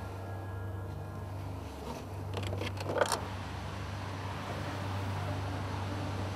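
Car's rear door unlatching and swinging open, a quick run of clicks about two and a half seconds in ending in a louder clack, over the steady low hum of the taxi's idling engine.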